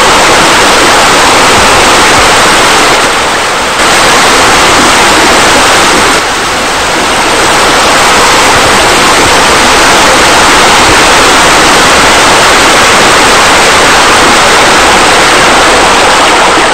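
Loud, steady rush of cascading water, with brief dips in level about three seconds in and again about six seconds in.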